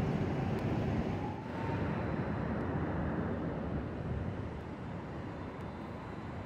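Steady city street noise with a hum of traffic. It drops a little in level about a second and a half in.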